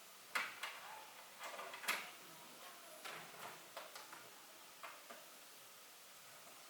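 Irregular clicks and knocks, some followed by brief rustling: hard plastic items being handled and set down, as in unboxing a keyboard.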